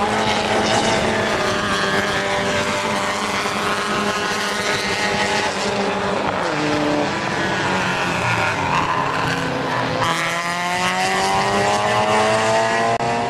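Several circuit-racing saloon cars' engines running hard together, their notes overlapping. From about ten seconds in, one engine note climbs steadily in pitch as that car accelerates.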